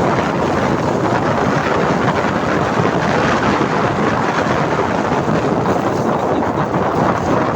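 Wind buffeting the microphone on a moving motorcycle: a steady, loud rushing noise with no letup.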